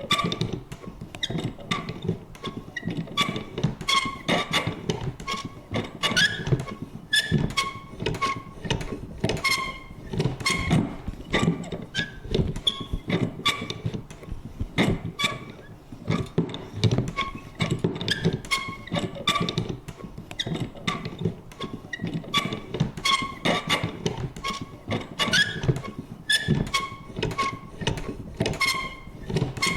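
A vintage paper punch worked over and over: an uneven run of clunks and short squeaky creaks, about two or three a second.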